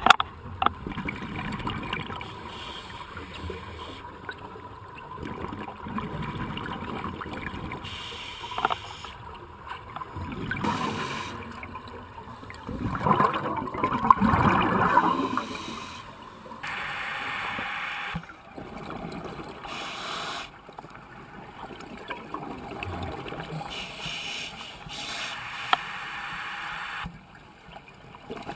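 Scuba divers' exhaled regulator bubbles gurgling underwater, coming in uneven surges every few seconds, loudest about halfway through.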